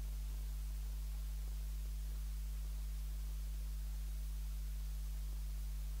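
Steady low electrical mains hum with a faint hiss, unchanging throughout: the audio feed is carrying no programme sound.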